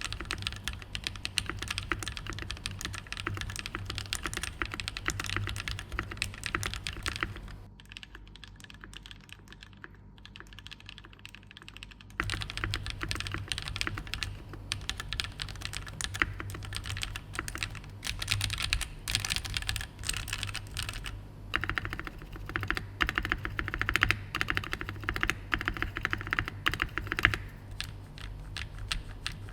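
Fast, continuous typing on a Keychron Q1 mechanical keyboard fitted with lubed KTT Peach linear switches: dense, overlapping keystrokes with a thocky sound. The typing drops to a softer stretch about eight seconds in and picks up again around twelve seconds.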